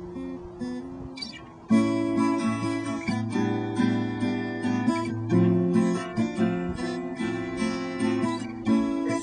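Acoustic guitar playing an instrumental passage: a few quiet picked notes, then fuller strummed chords that get suddenly louder about two seconds in and carry on in a steady rhythm.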